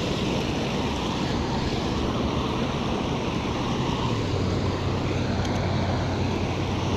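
Steady rush of river water spilling over a low concrete dam.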